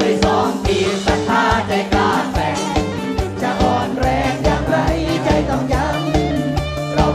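Live band music with male singers singing into microphones over a steady, driving drum beat.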